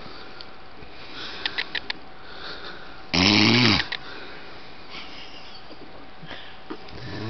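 A sleeping man snoring: one loud snore about three seconds in, lasting under a second.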